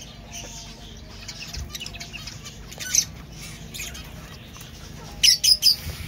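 Zebra finches calling: scattered short high chirps, a sharp call about three seconds in, and a louder run of four or five quick calls near the end.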